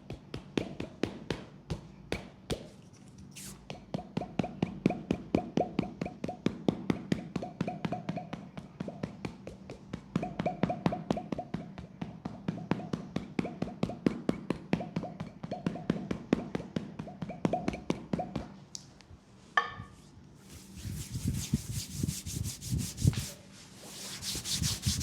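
Rapid percussive massage strokes on a leg, about six quick strikes a second, keeping an even rhythm. About twenty seconds in they give way to brisk rubbing.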